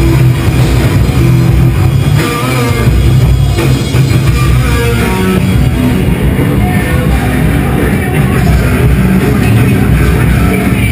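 Loud rock music with electric guitar and a driving drum kit.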